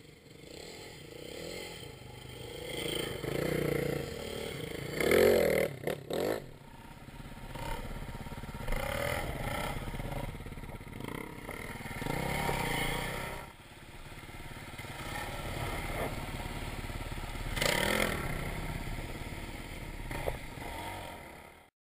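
Dirt bike engines revving as riders pass close by one after another, the sound swelling and fading several times over a steady low engine rumble. It is loudest about five seconds in and cuts off just at the end.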